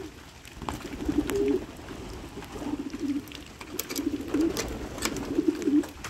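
Pigeons cooing, several warbling coo phrases one after another.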